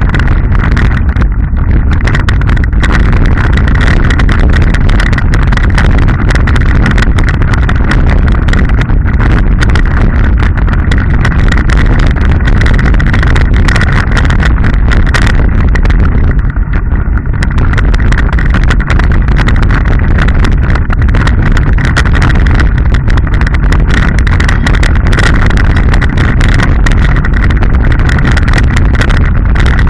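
Loud, continuous rumble and rattle of a mountain bike riding down a dirt and stony trail, heard from a camera mounted on the bike: tyres on the ground, wind on the microphone and a constant clatter of small knocks over the bumps.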